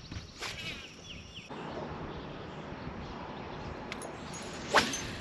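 Open-air lakeside ambience with a few short bird chirps early on and a steady noise, broken near the end by one brief sharp sound, the loudest thing heard.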